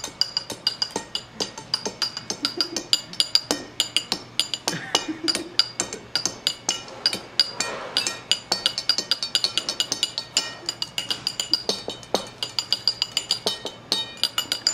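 Chopsticks drummed fast on the table, plates and drinking glasses: a quick run of knocks and clinks with a bright glassy ring.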